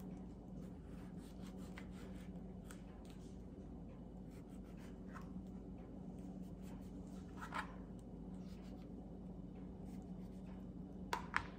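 Kitchen knife slicing through Roma tomatoes on a plastic cutting board: faint cuts, scrapes and taps of the blade on the board, with a louder knock about seven and a half seconds in and a couple more near the end. A steady low hum runs underneath.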